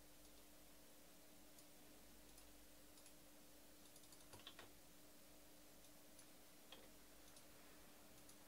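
Near silence: room tone with a faint steady hum and a few faint scattered clicks, a small cluster of them about halfway through.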